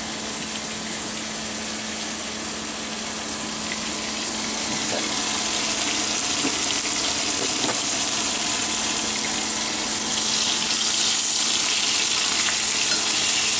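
Flour-dredged veal cutlets sizzling in hot vegetable oil and butter in a frying pan. The sizzle gets louder about five seconds in and again about ten seconds in.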